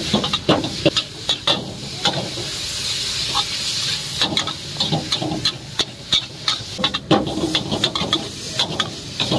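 Noodles stir-frying in a hot wok: a long-handled metal spatula scrapes and clanks against the wok in quick irregular strokes over a steady sizzle. The sizzling hiss swells for a couple of seconds about two seconds in.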